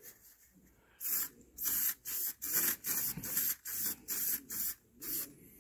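Aerosol spray paint can spraying in short hissing bursts, about two a second, starting about a second in, as a metal part is given a quick coat of paint.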